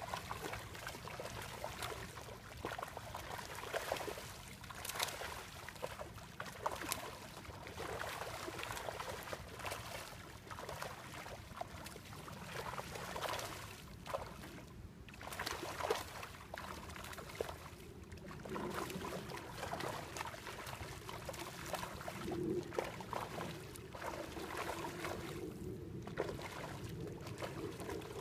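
Trout splashing at the water's surface as they feed on floating trout chow pellets: a continuous run of small, irregular splashes.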